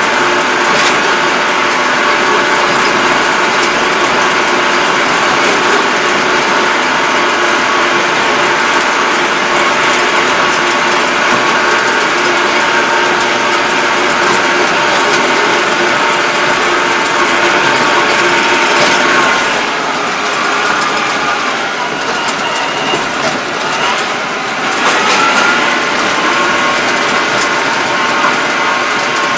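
Yanmar YT333 tractor's diesel engine and drivetrain running under way, heard from inside the cab, with several steady whining tones. About two-thirds of the way through the sound eases off and shifts in pitch, then a rising whine follows as it picks up again.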